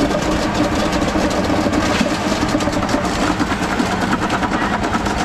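An engine running steadily amid dense, busy street noise.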